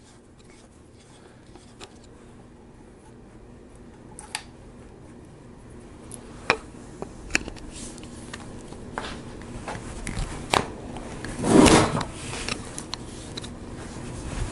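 Flat-blade screwdriver working a small 8-32 screw out of the ignition plate in a Harley-Davidson Shovelhead's cam cover: scattered light metallic clicks and scrapes of the blade in the screw slot, with one longer, louder scrape near the end.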